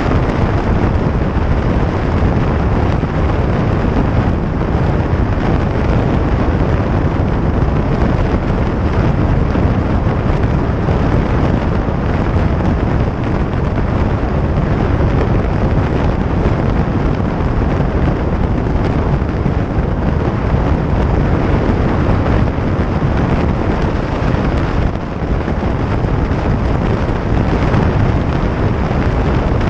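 Heavy wind buffeting the microphone over the steady rumble of a Harley-Davidson Iron 883's air-cooled V-twin cruising at highway speed.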